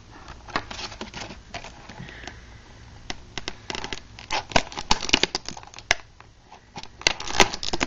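Nail clipper prying metal staples out of a clear plastic clamshell package: irregular clicks and plastic crinkling and crackling, in scattered clusters.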